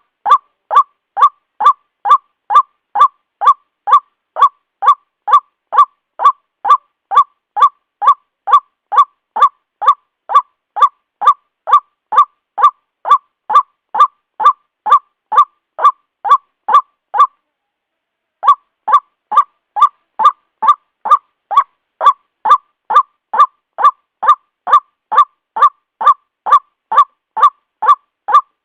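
White-breasted waterhen (ruak-ruak) calling, one harsh note repeated evenly a little more than twice a second, with a pause of about a second past the middle.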